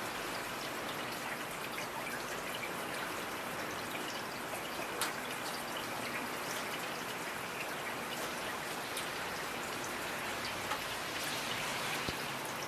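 Steady rain falling, with individual drops pattering and dripping on a surface.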